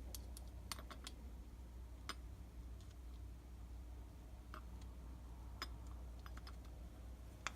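Sparse, faint metallic clicks and ticks of small bolts, nuts and a steel spike plate being handled and fitted together while a felling dog is bolted to a chainsaw clutch cover, about a dozen light taps at irregular intervals.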